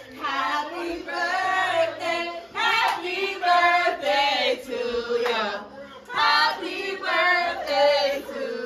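A group of women singing together in a loud chant-like chorus.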